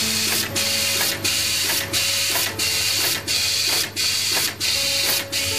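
A PCB auto insertion machine for through-hole components running through its cycle: a loud, hissy mechanical rush that cuts out briefly about every two-thirds of a second, in a steady repeating rhythm.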